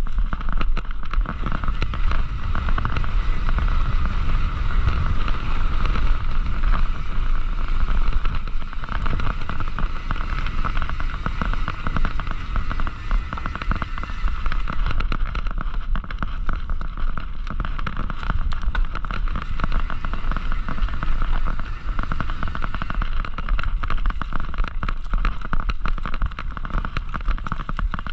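Mountain bike ridden over a rough dirt trail, heard from a camera on the rider or bike: continuous tyre noise and rattling with dense clicks, over low wind rumble on the microphone.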